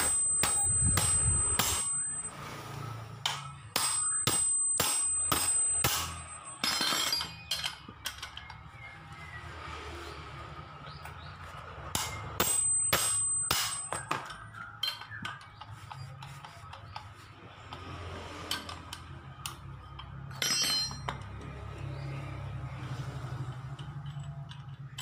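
Hammer striking a ring spanner to break loose the centre nut of a scooter's CVT driven pulley: runs of ringing metal blows, about three a second, near the start, around four seconds in and around twelve seconds in. Between and after them come lighter clinks of the pulley parts being handled.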